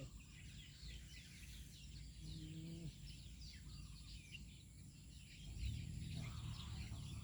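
Small birds chirping, a steady scatter of short, quick falling chirps, with a low rumble of wind or handling noise that grows louder near the end.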